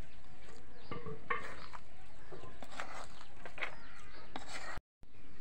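Metal ladle stirring cooked vegetable biryani in a steel pot, with scattered short scrapes and knocks of the ladle against the pot. The sound cuts out completely for a moment near the end.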